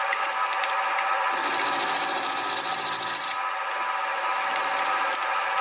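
Sieg SX2P mini mill running with a steady motor whine while its cutter mills the small end of the eccentric strap. A harsher, louder cutting hiss comes in a little over a second in and lasts about two seconds.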